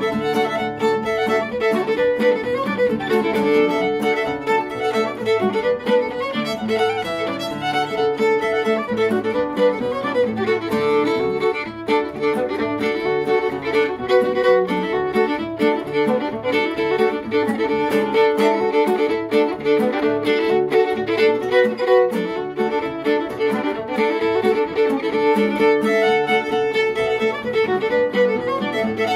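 Fiddle playing a reel in a steady run of quick bowed notes, with an acoustic guitar strumming chords underneath.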